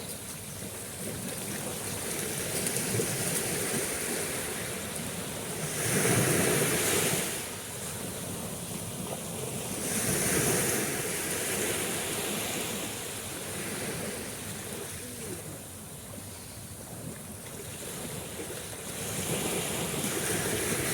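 Sea surf: waves rushing in one after another as a noisy wash, the loudest about six seconds in and again about ten seconds in, with another building near the end.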